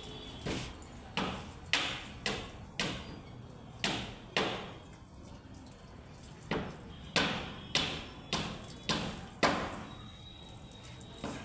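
A run of about a dozen sharp knocks or blows, roughly two a second, each dying away quickly, with a pause of about two seconds in the middle.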